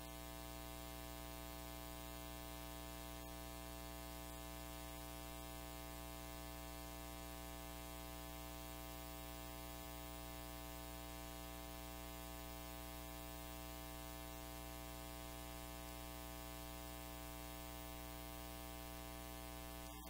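A steady, unchanging buzzing hum with many even overtones, holding at one level throughout, with no speech.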